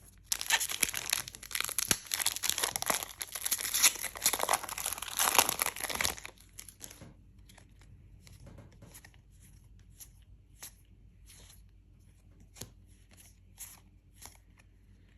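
A Lorcana trading-card booster pack wrapper being torn open and crinkled for about six seconds, followed by a scatter of soft clicks and taps as the cards are handled.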